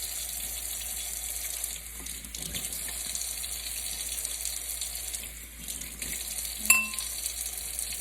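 Kitchen tap running into the sink as Brussels sprouts are rinsed, with one sharp, ringing clink near the end.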